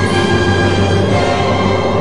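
Orchestral soundtrack music with loud, steadily held chords.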